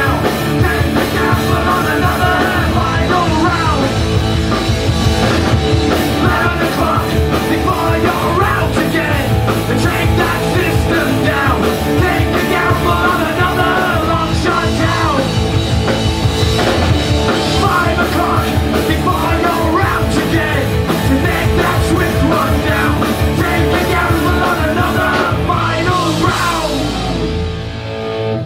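Live rock band playing electric guitars and drums with a man singing into the microphone; the song winds down near the end.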